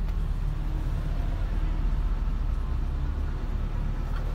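Steady low rumble of a car's engine and road noise heard inside the cabin of the car.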